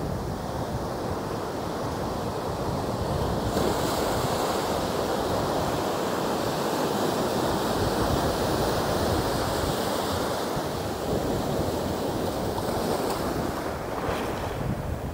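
Ocean surf breaking and white water washing up the beach, with wind rumbling on the microphone. The wash swells louder a few seconds in and eases off near the end.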